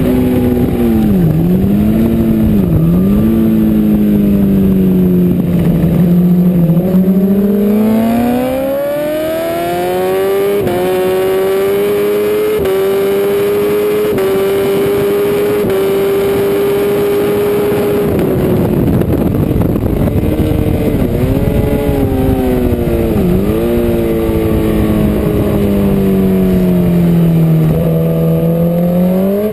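A BMW S1000RR's inline-four engine racing on track, heard from a camera on the bike. It is held low through a corner with two brief dips, then climbs through the gears with a short drop at each upshift for about ten seconds, falls away under braking with quick dips around the downshifts, and climbs again near the end.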